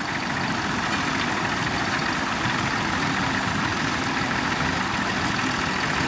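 Vintage Fordson Major tractor engine running steadily under load while pulling a mounted plough through the ground.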